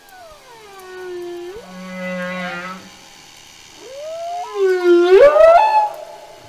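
Whale calls: two long moaning calls with many overtones. Each slides down in pitch and then sweeps back up; the second, about four seconds in, is the louder and ends in a steep rise.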